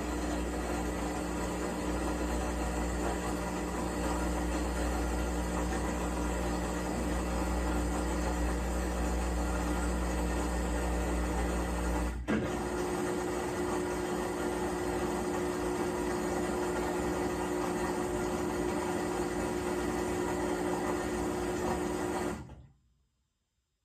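Maytag MVWC565FW2 top-load washer in its spin cycle, running with a steady grinding whine and failing to come up to full spin speed. About twelve seconds in there is a sharp click, after which the deep hum drops away and the whine shifts slightly higher; the sound stops abruptly near the end.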